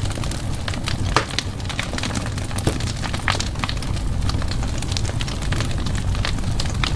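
Wood fire burning in a fireplace, crackling and popping irregularly over a low steady rumble, with a few louder pops.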